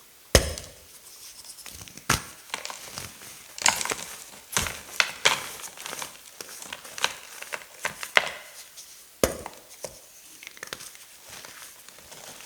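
Hard blocks of gym chalk mixed with silver glitter being crushed: a run of sharp, irregular cracks and crunches with a crumbly crackle between them. The loudest crack comes just after the start, with others scattered through.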